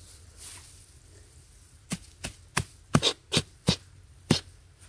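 A long-handled metal blade chopping into packed clay soil: about seven sharp strikes, roughly three a second, starting about two seconds in.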